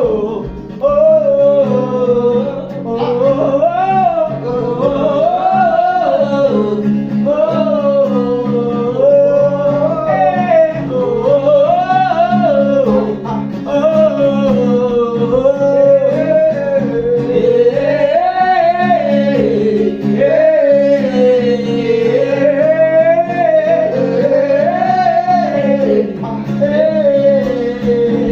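Gospel worship music: a voice singing a long, wavering melody that rises and falls in slow phrases, without clear words, over a steady held instrumental chord with guitar.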